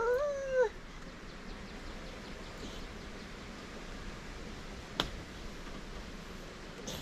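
A toddler's short, rising, squealing whine at the start, lasting under a second. A single sharp click about five seconds in.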